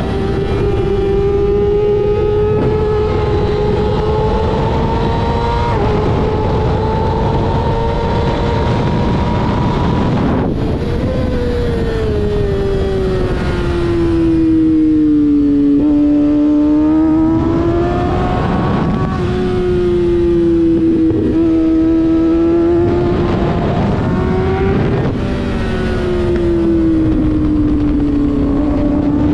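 Kawasaki ZX-6R 636 inline-four engine running hard on track, with a rush of wind over the helmet-mounted microphone. The engine note climbs steadily for about ten seconds, breaks off sharply, then falls and rises several times as the bike slows into and drives out of corners.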